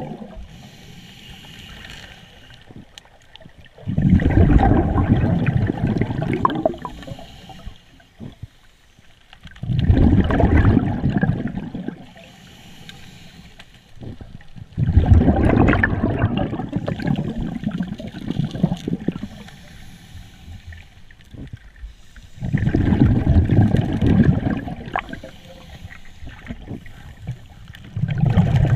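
Scuba diver's regulator heard underwater: a loud rush of exhaled bubbles every six seconds or so, much quieter between breaths.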